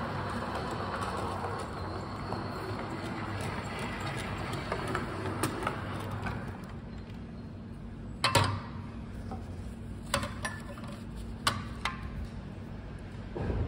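Model electric locomotive running along its track on the counter with a steady low motor hum. It is followed by a few sharp clinks of glass as drinks are lifted off its tray wagon, the loudest about eight seconds in.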